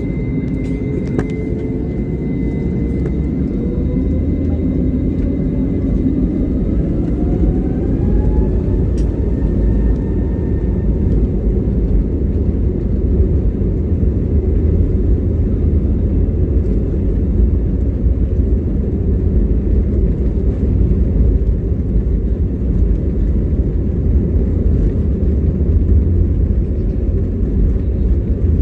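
Airbus A321neo's Pratt & Whitney PW1100G geared turbofan engines spooling up for takeoff: a whine that rises in pitch over the first ten seconds or so, over a heavy, steady rumble of the takeoff run.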